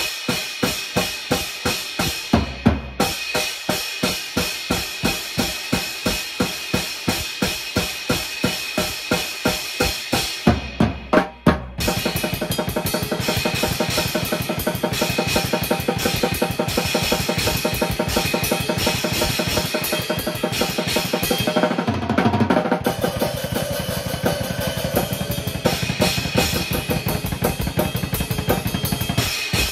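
Drum kit played: a steady, evenly spaced beat of kick, snare and cymbals, broken by short fills, then about halfway through it shifts into a much denser, fast pattern of continuous hits.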